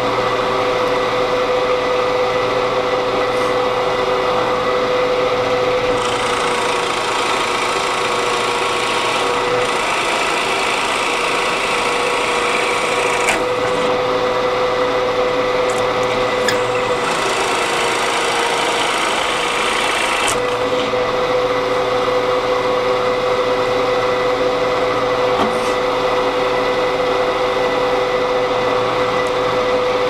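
Drill press running with a Forstner bit boring holes in cherry wood: a steady motor hum, with the bit's cutting noise swelling in several spells as it is fed into the wood.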